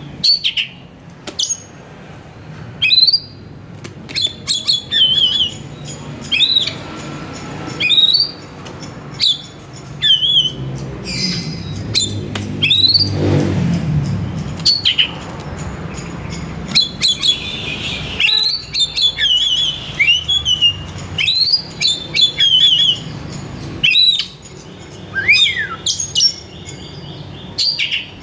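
Oriental magpie-robin (kacer) singing: loud, sharp whistled notes about once a second, many sweeping upward, with short rapid chattering runs. A low rumble swells and fades around the middle.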